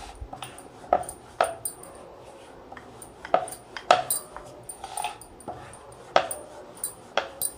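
Wooden rolling pin rolling out a thin sheet of dough on a wooden board, with irregular sharp wooden knocks about once or twice a second as the pin is pushed back and forth.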